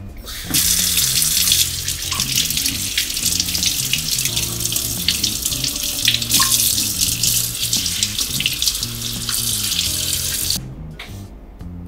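Kitchen mixer tap running into a stainless steel sink, the stream splashing over a potato and asparagus being rinsed under it. The water starts about half a second in and stops suddenly near the end as the tap is shut.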